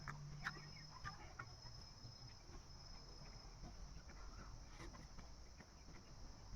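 Faint, high insect trill that comes in short broken stretches, with a few soft clicks scattered through it.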